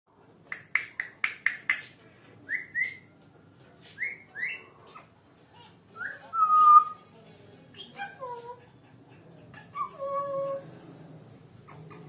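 African grey parrot whistling: a quick run of about six sharp clicking notes, then pairs of short rising whistles, a louder whistle that rises and holds around the middle, and more gliding and held whistled notes near the end.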